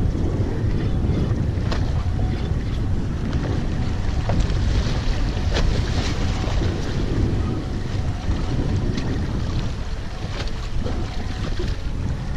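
Wind buffeting the microphone on a boat at sea, over a steady low rumble of water against the hull, with a few short clicks or splashes.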